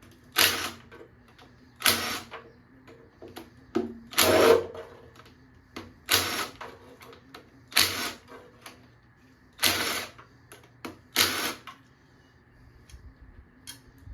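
Short rattling bursts of a wrench running bolts off an engine, about seven in all, one every second and a half to two seconds, stopping near the end.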